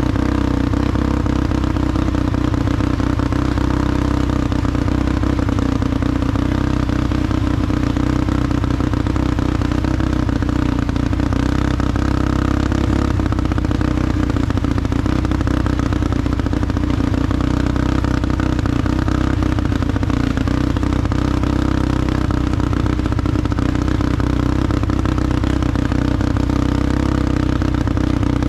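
A small vehicle's engine running steadily at a constant pitch, with a light rattle over it.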